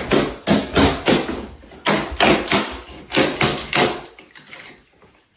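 A run of loud taps, about two or three a second, that die away after about four seconds.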